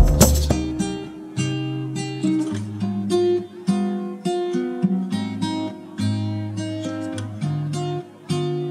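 Background music: an acoustic guitar picking a melody in a steady run of plucked notes.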